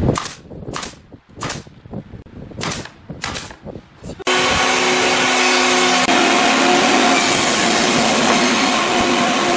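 Pneumatic brad nailer firing several sharp shots into a pine corner joint, then a table saw switched on about four seconds in and running steadily.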